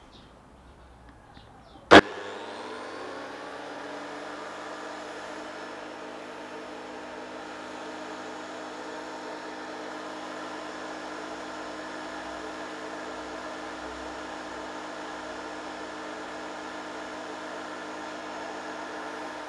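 Makita 2012NB thickness planer with its original straight-knife cutter head switched on with a click about two seconds in, spinning up and then running steadily with no load: a steady motor and cutter-head whine.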